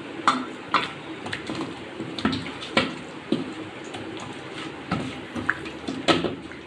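A hand squelching and slapping raw chicken leg pieces through a thick yogurt-and-cornflour marinade in a steel bowl. The wet slaps come irregularly, a few to the second, with the loudest near the start and near the end.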